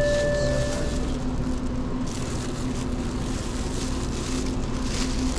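Steady low hum of a convenience store's refrigerated coolers and ventilation, with a thin plastic bag crinkling in hand. An electronic beep stops about a second in.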